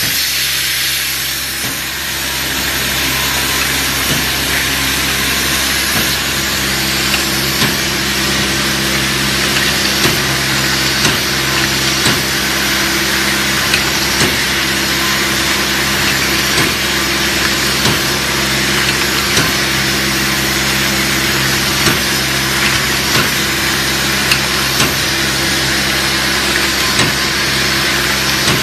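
Automatic bag-on-valve aerosol crimping and gas-filling machine running: a steady motor hum and hiss, with short sharp clicks about once a second as the rotary stations work the cans.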